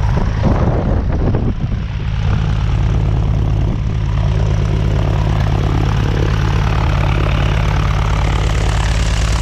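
The 1959 Cessna 172's Continental O-300 six-cylinder aircraft engine idling steadily on the ground, propeller turning. There is some handling noise in the first couple of seconds, and a hiss of wind grows stronger toward the end.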